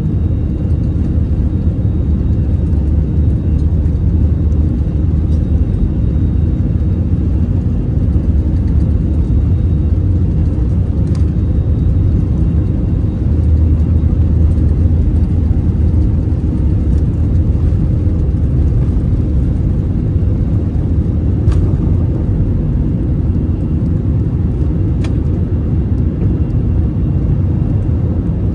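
Airbus A321 heard inside the cabin during the takeoff roll and liftoff: a loud, steady low rumble of the jet engines at takeoff power and the airliner rolling down the runway. A few faint ticks sound at intervals.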